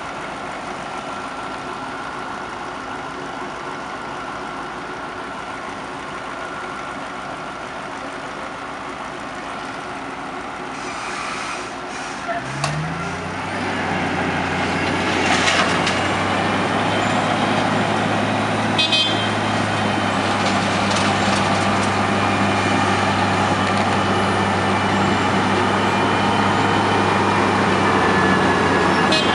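Heavy diesel engines of road-works machinery running. About halfway through, one engine rises quickly in pitch and then settles into a louder, steady low drone, with a few sharp clanks over it.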